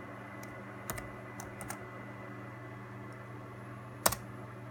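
Laptop keyboard keystrokes: a few scattered key presses, then one much louder key press about four seconds in, over a steady low hum.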